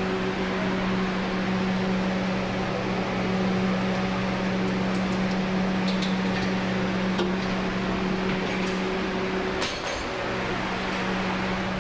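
Steady electric motor hum with rushing air from a large fan. A few light clicks fall in the second half, and the hum drops out briefly about ten seconds in.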